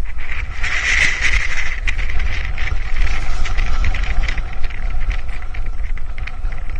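Wind buffeting the microphone: a steady low rumble with hiss and frequent handling clicks.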